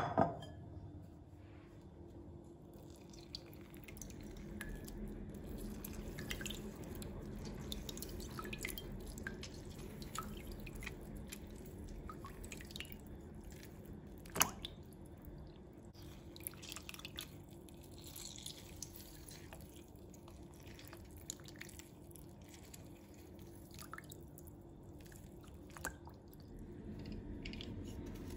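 Faint kitchen work sounds: scattered small clicks and taps, with a sharp knock at the start and another about halfway, over a low steady hum.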